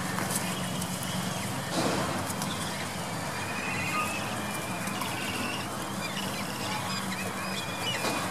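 Birds calling in short wavering trills, about two and a half and four seconds in and again near the end, over a steady low hum.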